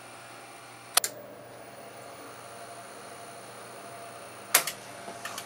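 Sony CV-2000D reel-to-reel videocorder running during tape playback, a steady mechanical hum with a thin high whine. Two sharp clicks cut through it, about a second in and again about four and a half seconds in, followed by a few lighter clicks.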